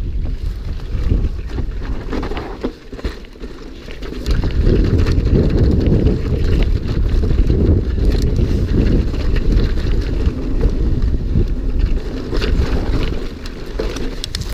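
A mountain bike ridden fast down a rough trail: wind buffeting the microphone, with a steady low rumble and scattered knocks. It gets louder about four seconds in and eases off near the end.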